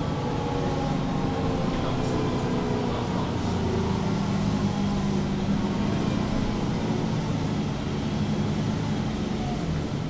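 Diesel engine and ZF Ecolife automatic transmission of a MAN Lion's City G NG363 articulated city bus running under way, a steady low drone whose pitch drifts a little up and down.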